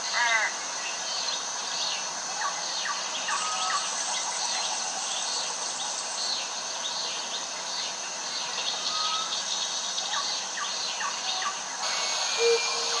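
Woodland ambience: birds calling with many short chirps and falling whistles, opening with a quick run of falling notes, over a steady high-pitched drone.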